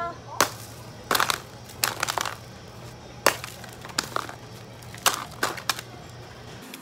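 Blocks of dry ice being struck with a hammer and cracked into chunks: about a dozen sharp cracking knocks at an uneven pace, some single and some in quick clusters.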